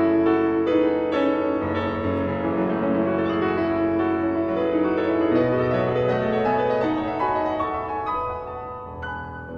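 Background classical piano music, slow and melodic.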